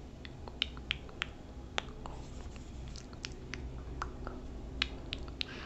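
Soft, sharp clicks and small pops right at the microphone, irregular and a few a second, over a low steady hum: close-miked ASMR trigger sounds.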